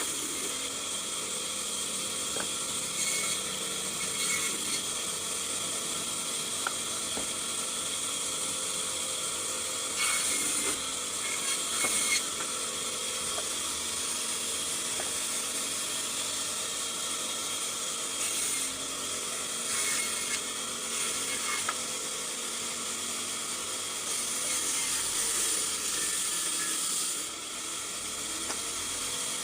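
Power saw machine running steadily while cutting timber, with a constant whine and short louder surges of cutting noise now and then.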